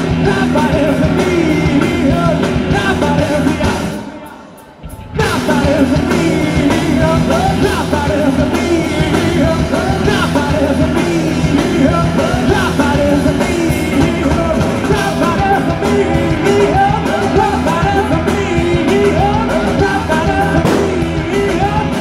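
Live rock band playing loud: electric guitars, bass guitar and drums with a lead singer. About four seconds in the band cuts out for about a second, then comes back in all at once.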